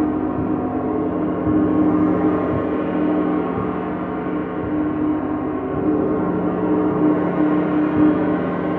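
A gong played continuously with repeated light strokes, its many overlapping ringing tones held in a steady, sustained wash.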